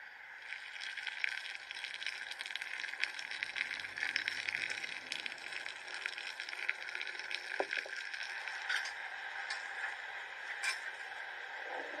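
Liquid poured in a thin stream from a clay jug into a glass jar packed with vegetables and eggs: a steady, crackly trickling and splashing that starts about half a second in.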